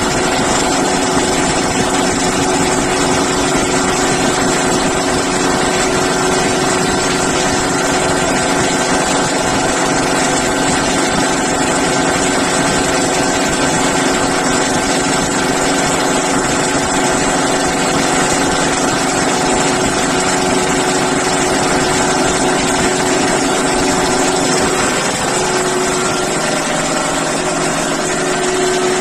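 High-pressure breathing-air compressor running steadily while it charges an SCBA cylinder: a loud, even machine drone with a steady hum. Its lower tones shift slightly near the end.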